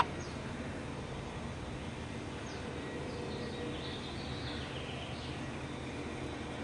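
Steady outdoor background noise with faint, short bird chirps through the middle, and one sharp click at the very start.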